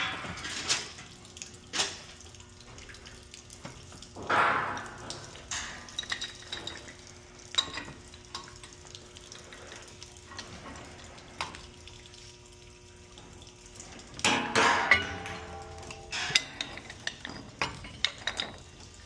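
Steel pipe fittings and hand tools clanking and scraping irregularly as piping is worked loose, with two louder metallic clangs that ring briefly, about four seconds in and again about three-quarters of the way through.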